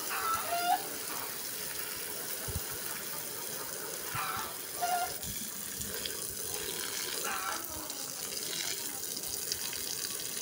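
Garden hose spray nozzle jetting water onto the soil of a potted plant: a steady rush of water.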